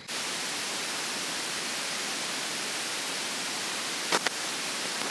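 Steady, even hiss of heavy rain falling on the tent, with a faint tick about four seconds in.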